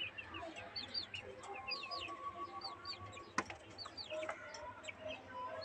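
Young chickens and quail calling inside a wire cage: a stream of short, high, falling peeps over softer, lower clucking calls, with one sharp click about three and a half seconds in.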